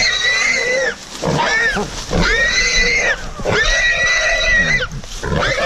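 Young boar hog squealing repeatedly while held by a catch dog biting its ear: about five loud, high squeals, three of them long, about a second each.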